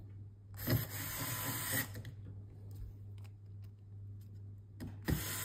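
Small electric screwdriver running in two short bursts, about a second each, driving small screws back into a car head unit. The first burst comes about half a second in, the second near the end.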